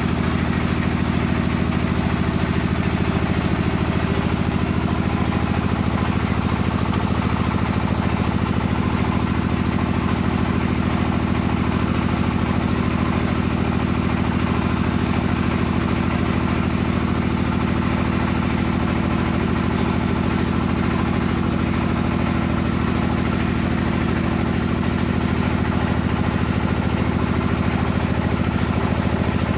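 An engine idling steadily at an even speed, with no revving.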